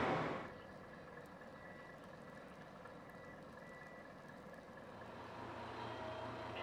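A loud noise fades out in the first half second, leaving quiet outdoor ambience with faint steady high tones. From about five seconds in, the low steady hum of a KiHa 40 diesel railcar idling at the platform grows louder.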